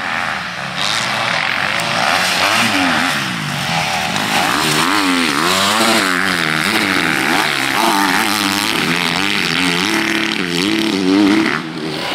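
Several motocross bikes revving up and down on the track, their engine pitches rising and falling and overlapping as they accelerate and back off.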